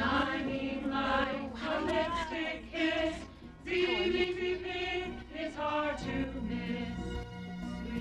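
A group of women singing a song together.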